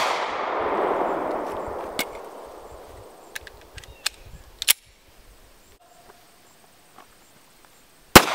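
A 9mm Glock 43 pistol shot echoes off the surroundings and fades over about two seconds. Several sharp metallic clicks follow as the magazine is changed and the gun is readied. Near the end a single loud shot is fired.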